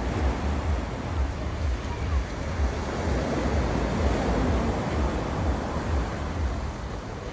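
Wind rushing over and buffeting the microphone: a steady hiss with irregular low rumbling gusts.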